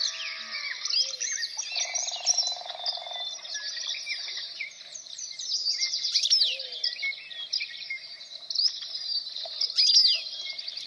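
Many birds chirping and singing at once in a dense, overlapping chorus of short high chirps and whistled notes. About two seconds in there is a lower buzzing trill lasting a little over a second.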